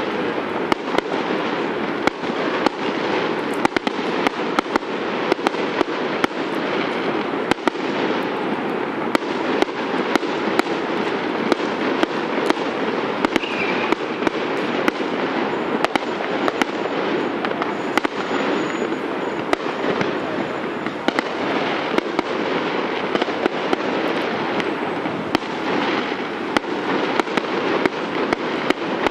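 Aerial fireworks bursting: irregular sharp bangs and pops, about one or two a second, over a steady background rush.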